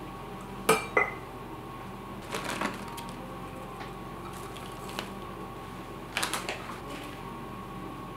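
Two sharp knocks about a second in as a metal measuring cup taps against a mixing bowl to tip out flour, then two short bursts of clatter and scraping as a spatula mixes flour, oats and dried cranberries in the bowl, over a faint steady hum.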